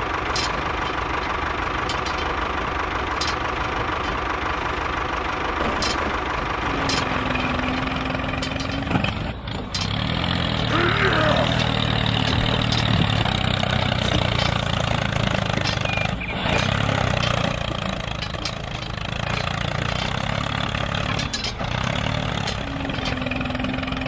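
Tractor engine running steadily, growing heavier from about ten seconds in as the tractor drives off.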